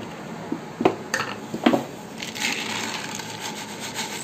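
A few sharp clicks, then melon seeds (char magaj) pattering and rustling as they are poured from a plastic container into a steel bowl.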